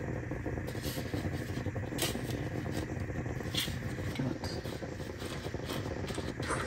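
Plastic-gloved hands pressing chicken strips into dry panko breadcrumbs on a cutting board: soft scraping and crinkling with a few sharper crackles, over a steady low hum.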